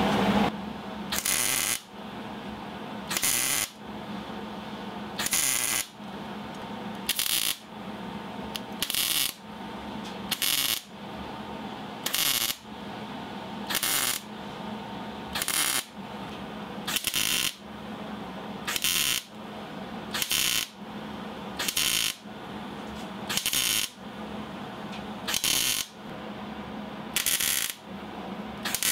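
MIG welder arc crackling in short bursts of about half a second, one roughly every second and a half to two seconds, as it stitch-welds a steel oil pickup tube.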